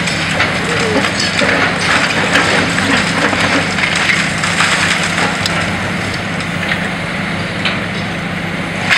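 Long-reach demolition excavator's diesel engine running steadily while its hydraulic crusher jaws bite into the building's concrete frame, with irregular cracking and crunching of concrete and falling rubble.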